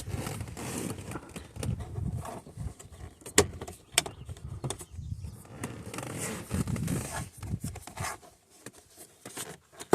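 Plastic steering column trim being worked loose and pulled off by hand: irregular scraping and rustling with a few sharp clicks, the loudest about three and a half and four seconds in.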